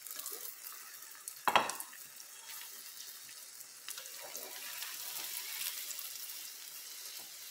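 Egg omelette sizzling steadily as it fries in an oiled ceramic-coated frying pan, with the scrape of utensils turning it. There is one sharp knock about one and a half seconds in.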